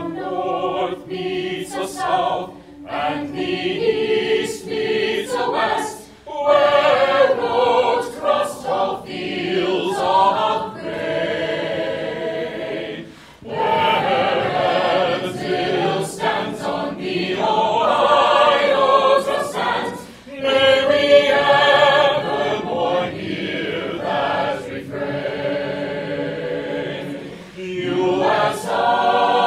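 Mixed-voice chamber choir singing a university alma mater, in sung phrases separated by short breaks for breath.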